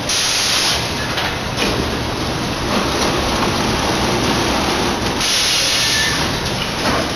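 Rockwool sandwich panel line's automatic stacker running, with a steady machinery rumble. Two sharp hisses stand out, one at the start and one about five seconds in, each under a second long, with a few light clicks between.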